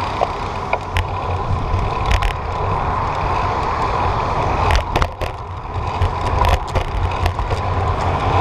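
Wind rushing over the microphone and the rolling noise of a bicycle on the move, with a few sharp clicks and knocks along the way.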